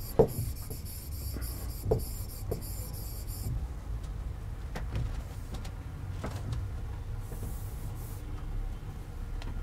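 Low steady room hum with a few soft taps and rubs of a stylus on an interactive whiteboard screen as lines are erased.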